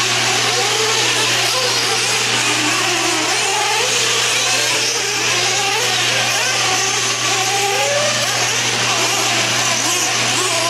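Several 1/8-scale nitro truggies' small two-stroke glow-fuel engines racing, their pitch rising and falling as the throttles open and close. A steady low hum runs underneath.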